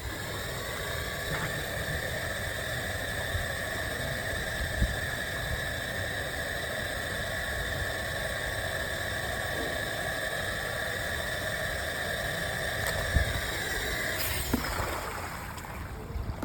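Small cordless handheld car vacuum cleaner running with a steady high whine. About 14 seconds in it is switched off and its motor winds down in falling pitch, followed by a few light knocks.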